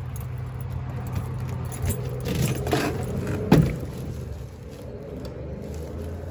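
Keys jangling and a metal door's knob latch clicking as a steel door is unlocked and pushed open, with one sharp knock about three and a half seconds in, over a steady low hum.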